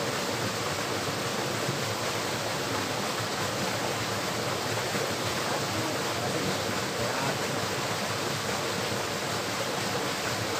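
Steady rushing of flowing river water, an even noise with no separate events.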